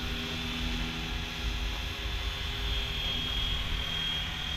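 Flywing FW450L V3 electric RC helicopter flying fast in GPS mode: the steady high whine of its brushless motor and spinning rotor, with a low uneven rumble underneath.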